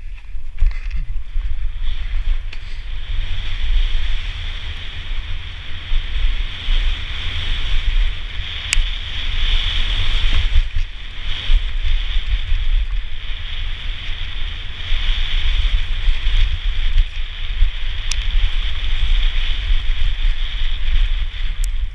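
Wind buffeting the microphone of a helmet-mounted camera on a fast downhill mountain bike descent, over the rumble and rattle of the bike on a dirt trail. There are a few sharp clicks.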